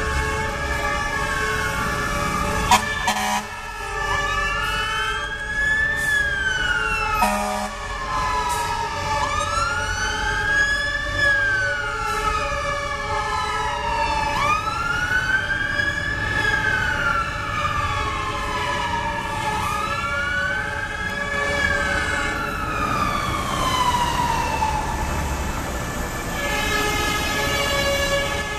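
Fire-truck sirens wailing over the low rumble of the trucks' engines, a slow rise and a longer fall repeating about every five seconds, with steady siren tones layered underneath. Two brief sharp sounds come about three and seven seconds in, and the wail stops near the end.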